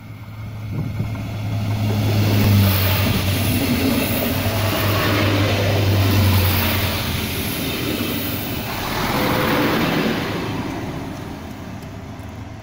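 DB Class 648 (Alstom Coradia LINT 41) two-car diesel multiple unit passing close by: a steady low diesel engine hum under the rumble of wheels on the rails. The sound swells as the train passes, surges again about nine seconds in, then fades as it runs on.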